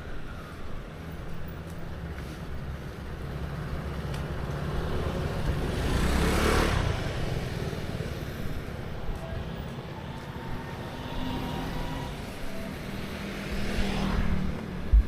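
Motor vehicles passing over a steady low rumble of traffic: one swells up and fades about halfway through, and a second passes near the end, followed by a short thump.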